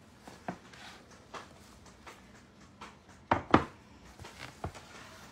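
Light taps and knocks of things being handled and set down on a kitchen countertop, with two louder knocks in quick succession about three and a half seconds in.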